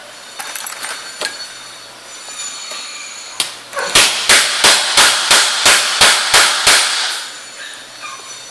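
A hammer tapping on an HTC HD phone's screen in a screen durability test. After a few light clicks and a single knock, it gives a quick run of about ten sharp, even taps, about three a second.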